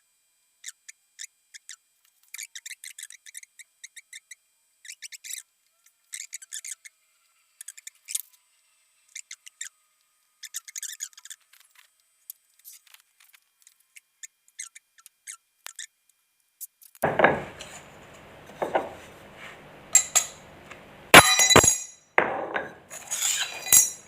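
Metal clinking and knocking from work on a motorcycle crankshaft in a truing jig: short, thin, high-pitched clicks at first, then about seventeen seconds in a run of sharp, ringing metallic strikes, the loudest near the end.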